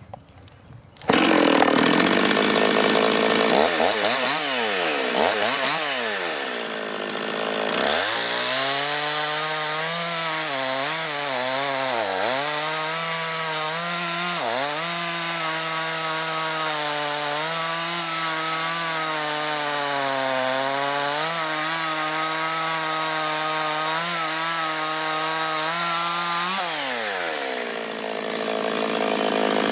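Stihl two-stroke chainsaw, just revived from old-fuel damage, revving up and down a few times, then held at full throttle cutting through a log, its pitch dipping briefly twice as the chain bites. Near the end it drops back to idle.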